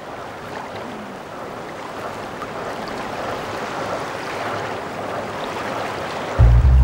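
Lake water fizzing and splashing lightly as methane gas bubbles up through the surface, a steady hiss that grows a little louder. Deep music comes in near the end.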